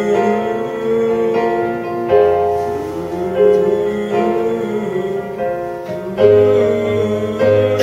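Piano music on a digital keyboard: slow, held chords that change every second or two.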